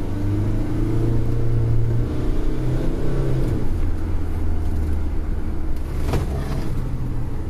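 A van's engine heard from inside the cab as it drives. It rises in pitch for the first few seconds, drops about three and a half seconds in, then runs lower and steadier.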